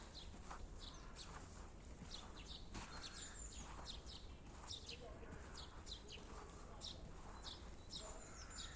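Small birds chirping: short, high calls repeated about twice a second over a faint, steady low rumble.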